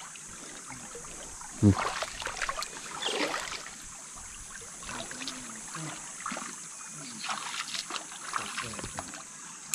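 Shallow water splashing and sloshing in irregular bursts as people wade and work among rocks in a stream, with a sharp louder splash or cry about two seconds in.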